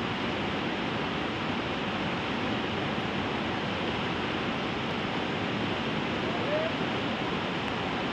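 Whitewater rapids rushing steadily over boulders, a dense, unbroken wash of water noise.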